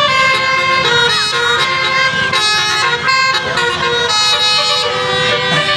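Telolet multi-tone horns playing a tune: several steady notes sound together and change in steps, with a few short pitch glides among them.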